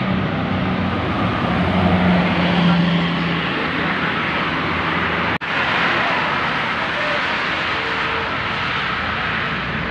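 Large coach bus passing on a motorway, its engine hum over steady tyre and traffic noise for the first few seconds. The sound drops out for an instant about halfway through, then steady traffic noise carries on.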